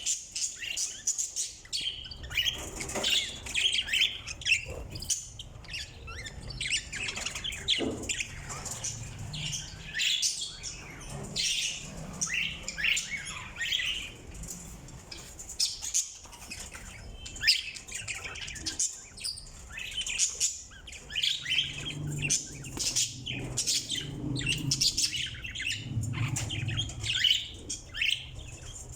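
Budgerigars and cockatiels chirping and chattering in many short, overlapping high calls, with an occasional squawk.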